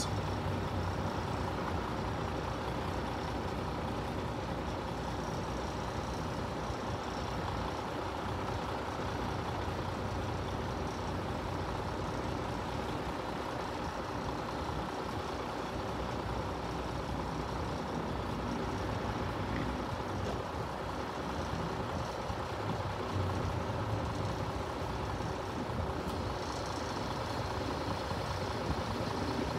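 Steady road-vehicle engine noise, like a lorry idling, with a continuous low rumble and hum and no distinct events.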